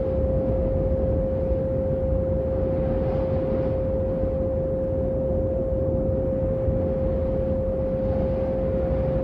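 A single steady electronic tone held at one pitch, a meditation 'healing frequency' tone. It plays over a deep rumbling drone with a fainter hiss that slowly swells and fades.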